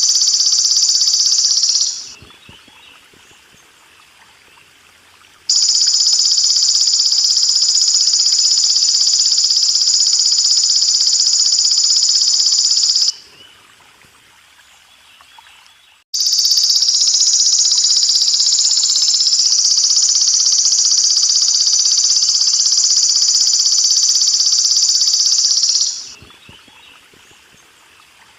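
Belalang emas (golden grasshopper) singing: a loud, continuous high-pitched buzz in long bouts that break off about 2, 13 and 26 seconds in, each pause lasting a few seconds. A faint trickle of water is heard under the pauses.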